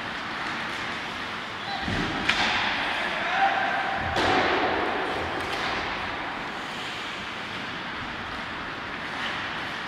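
Heavy thuds against the ice hockey rink's boards, twice, about two and four seconds in. Underneath is the steady hiss of skates and the echo of the rink hall.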